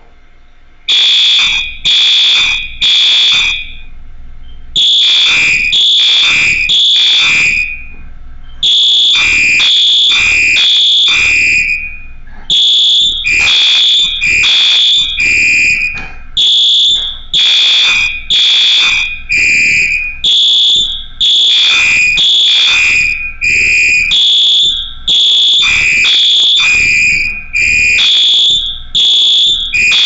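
Fire alarm horns sounding the temporal-three evacuation pattern: three loud buzzing blasts, then a pause, repeating about every four seconds, starting about a second in.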